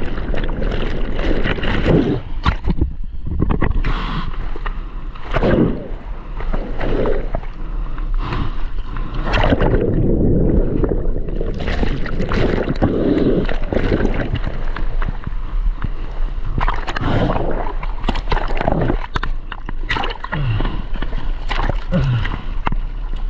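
Surf water churning, gurgling and splashing in irregular surges over a steady low rumble, as a surfer is washed about by broken waves.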